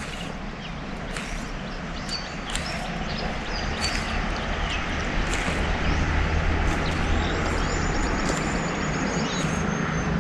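A motor vehicle being driven along, its engine giving a steady low hum under wind and road noise that grows gradually louder.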